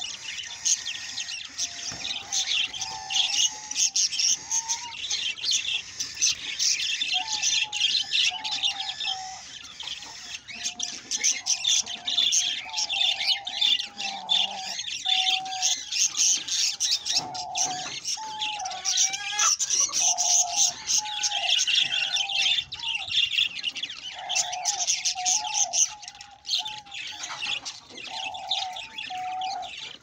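A flock of budgerigars chirping and chattering nonstop, many rapid high chirps overlapping, with a lower, shorter call repeating underneath every second or so.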